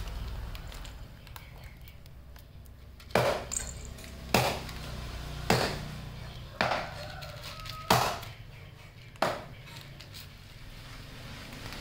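A cat crunching dry kibble, six sharp crunches about a second apart.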